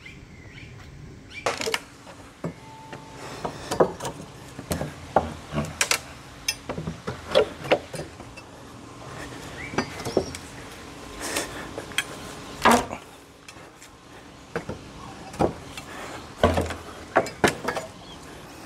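Homemade steel pallet buster levering the slats off an old wooden pallet: a run of irregular sharp cracks, knocks and clinks as the boards are pried up, starting a second or so in.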